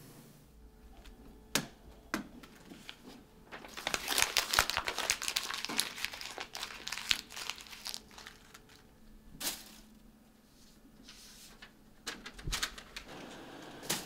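Paper being crumpled by hand into a ball: a dense run of crackling from about three and a half to eight seconds in, with a few sharp crinkles and taps before and after.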